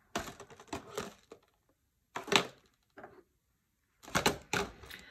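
Makeup foundation bottles and tubes being set down into a cardboard box, knocking against the box and each other in a run of short clicks and knocks, loudest about two seconds in and twice near the end.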